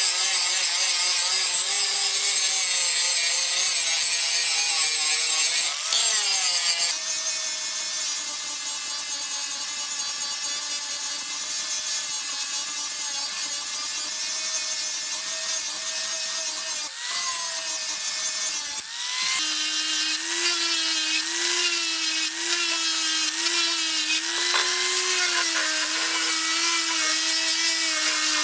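Handheld electric angle grinder running continuously, its abrasive disc grinding the steel of a chainsaw guide bar, a high whine with grinding hiss. The sound dips briefly three times, about six, seventeen and nineteen seconds in.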